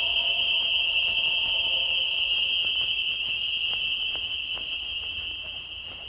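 A high, steady ringing tone from the film's soundtrack, with lower held tones beneath it that die away about two and a half seconds in; the high tone slowly fades out near the end.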